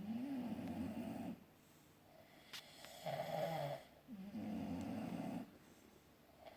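A sleeper snoring, three snores in a row with quiet breaths between; the middle one is the shortest.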